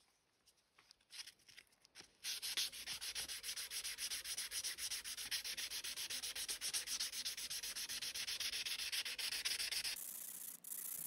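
Waterproof sandpaper rubbed quickly back and forth by hand along the steel blade of an antique drawknife, a fast, even rasping rhythm. A few light scrapes come first, the steady strokes start about two seconds in, and the sound changes abruptly to a steadier hiss near the end.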